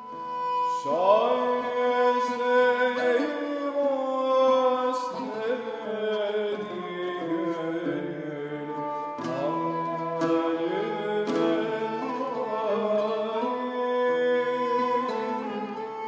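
Ottoman-Greek ensemble music in Hicaz makam: a bowed kemençe plays a melody with sliding notes over held tones, with a few sharp plucked strokes of the lafta lute.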